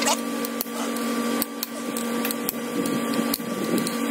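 Scattered sharp metallic clicks and clinks of hand tools on a 5.3 LS V8 block as its main cap bolts are loosened with a ratchet, over a steady low hum.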